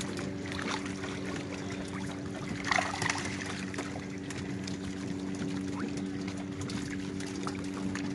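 Water lapping and splashing against small wooden fishing boats as handlines are hauled in, with a steady low hum underneath. A brief louder splash about three seconds in.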